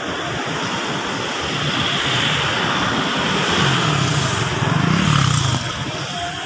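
Street traffic: a motor vehicle passing unseen, its engine loudest about four to five and a half seconds in, then dropping away.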